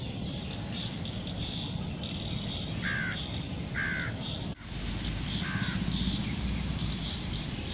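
Birds calling: repeated high chirping bursts, with short falling calls about three, four and five and a half seconds in.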